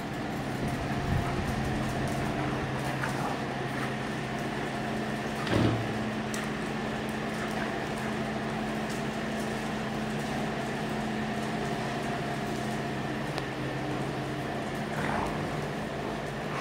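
A steady mechanical hum made of several held tones, like a running fan or similar appliance. About five and a half seconds in there is one short, loud thump-like sound, and there are a couple of faint short sounds near the end, while two German shepherds wrestle on a marble floor.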